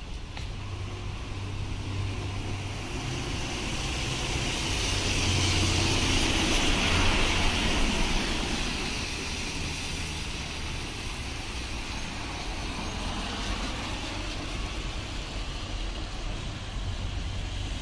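School bus driving past close by on a rain-wet road, its engine running and its tyres hissing through the water, the sound building to its loudest about halfway through and then fading.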